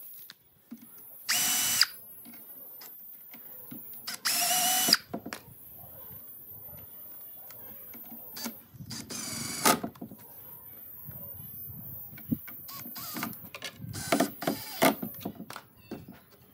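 Hitachi cordless impact driver driving screws into wood in three short bursts of steady whine, the last the longest. Light clicks and knocks from hands working the bracket and lid follow near the end.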